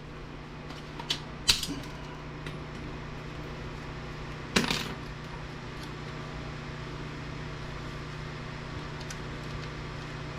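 A few light metallic clinks of small parts being handled while an APC backup unit is taken apart: two close together about a second in and a louder one near the middle, over a steady low hum.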